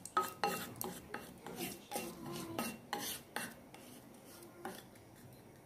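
Wooden spatula stirring bay leaves in oil in a stainless steel pan: irregular taps and scrapes against the metal, thinning out after about four seconds.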